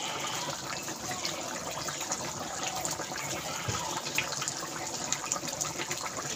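Rohu fish curry gravy bubbling at a boil in a kadai, a steady liquid bubbling with many small pops, as pieces of fried fish are slipped into it.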